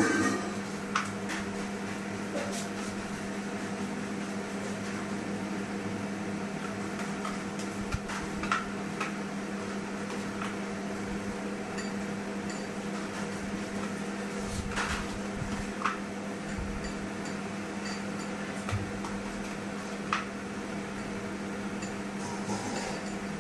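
Steady mechanical hum with a strong low tone, broken by a dozen or so light clicks and taps scattered throughout.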